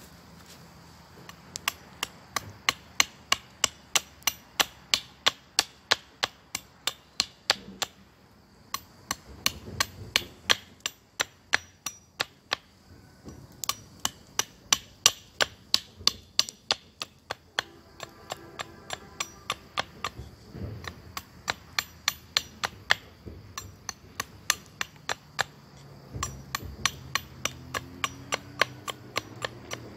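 Repeated hammering: sharp strikes at about two a second, in several runs broken by short pauses.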